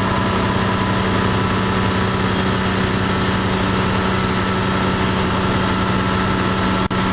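Diesel train's engine running steadily with a constant hum and whine, heard from inside the train as it rolls slowly along a station platform. The sound drops out for an instant near the end.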